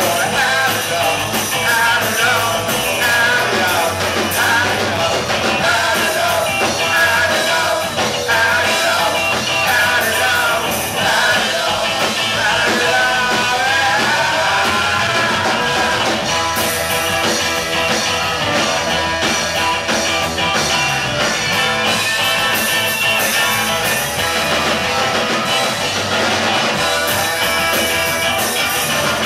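Live rock band playing loud: a woman singing over saxophone, electric guitar and drums, giving way about halfway to an instrumental passage where a violin carries the tune.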